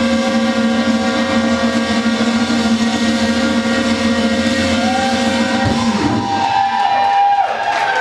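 Rock band's final chord held and ringing out on distorted electric guitars over a droning low note. About six seconds in it ends with a sharp hit, followed by several swooping, wavering high tones as the song closes.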